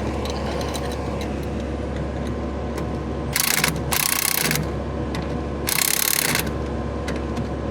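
A steady low machine hum with light clicking, broken by short bursts of hiss: two close together about three and a half seconds in, and a longer one about six seconds in.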